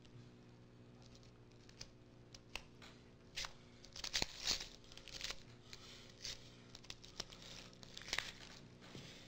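The wrapping of a brand-new sealed pack of playing cards being torn open and crumpled by hand: faint, irregular crinkles and short rips, loudest about four seconds in and again near the end.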